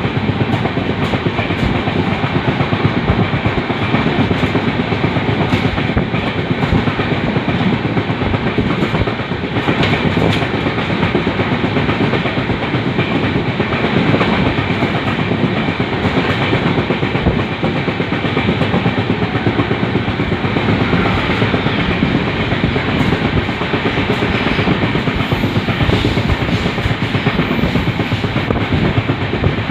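LHB passenger coach running along the rail track. A steady rumble with irregular clicks and knocks from the wheels over the rails.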